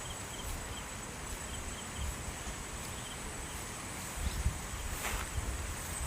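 Outdoor rural ambience: a steady high insect trill, with small repeated chirps and a low rumbling in the last couple of seconds.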